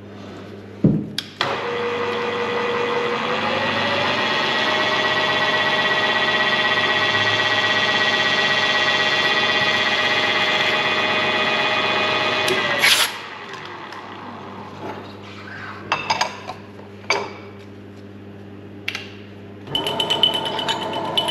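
Milling machine starting up about a second in: its spindle whine rises over the next couple of seconds, holds steady for about ten seconds, then stops suddenly. Several clicks and knocks follow, and the machine runs again briefly near the end.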